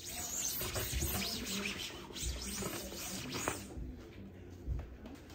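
Disinfecting wipe rubbed back and forth across a hard desktop: repeated scratchy wiping strokes for the first three and a half seconds, then quieter, with a soft knock near the end.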